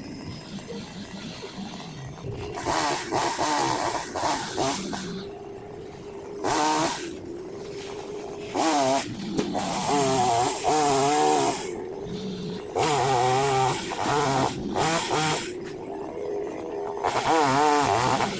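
Two-stroke chainsaw idling and being revved hard in about six bursts of a half-second to a few seconds each, its pitch wavering during each burst.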